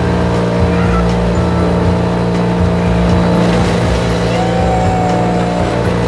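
Vermeer wood chipper running steadily under load, its engine droning as it shreds fruit and blows the pulp out of the discharge chute.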